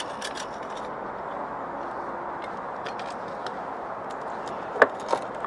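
Steady background hiss of outdoor ambience, with a few sharp clicks of gear being handled and stowed, the two loudest near the end.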